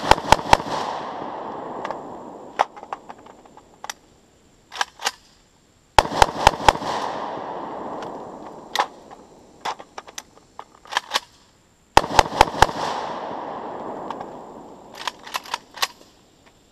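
AK-pattern rifle fired in three quick strings of about six shots each, spaced roughly six seconds apart. Each string is followed by a long echo that dies away over a couple of seconds, with scattered fainter sharp pops in between.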